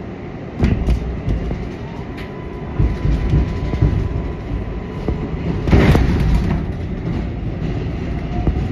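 R188 subway train running on elevated track, heard inside the front cab: a loud, dense rumble with wheels knocking over rail joints. A thin steady whine sounds for a few seconds in the middle, and a louder sharp clank comes about six seconds in.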